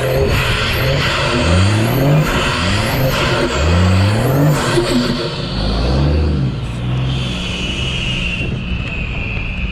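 Nissan TD42 turbocharged straight-six diesel with a 4-inch exhaust, its revs rising and falling three times before settling to a steadier low run. A steady high whine sits over it near the end.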